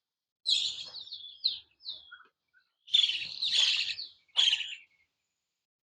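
A bird singing: a phrase of quick high chirps and warbles starting about half a second in, then two louder phrases about three and four and a half seconds in.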